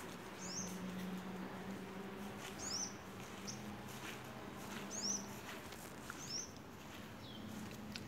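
A small bird chirping: short high chirps repeated every second or two, over a faint steady low hum.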